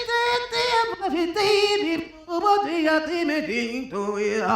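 A woman singing alone without accompaniment and without words: a long held note with vibrato, then a run of shorter notes sliding up and down, settling on a lower held note near the end.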